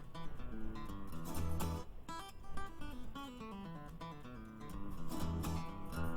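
Background music: plucked acoustic guitar playing a melody over a bass line.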